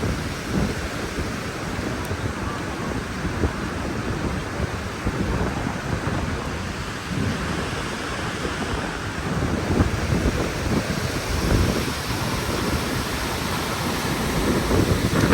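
Steady roar of the Gullfoss waterfall, with gusts of wind buffeting the microphone.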